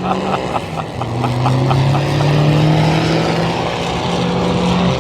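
A car engine running steadily at low to moderate speed, its pitch stepping up about a second in and then drifting only slightly.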